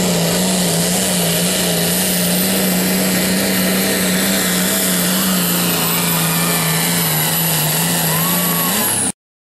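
International Harvester pulling tractor's engine running at high revs under load while it drags a weight-transfer sled. The engine pitch holds nearly steady, and the sound cuts off abruptly about nine seconds in.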